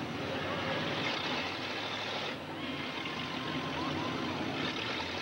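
Engines of demolition derby cars running on the track, a steady rough din that dips briefly about two seconds in, with no crash impacts.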